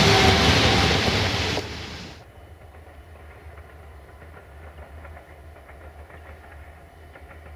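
Passenger coaches rolling past close by, a loud rumble that cuts off about two seconds in; after it, the low steady hum of a distant diesel locomotive.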